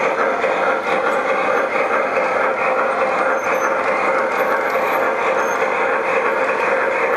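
Large-scale model freight cars rolling past on track: a steady rolling noise of the wheels on the rails.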